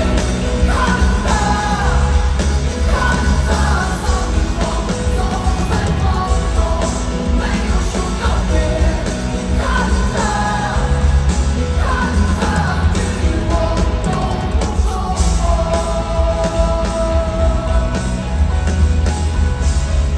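Loud live band music at a stadium concert, with a heavy steady bass and a wavering sung melody above it.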